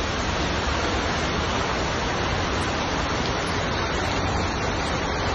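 Torrential rain pouring onto a flooded street: a steady, dense hiss.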